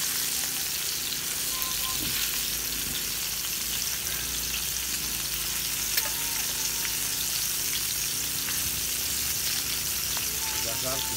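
Fish steaks sizzling steadily in hot oil in a pan, with a spoon nudging and turning the pieces and one sharp tap about halfway through.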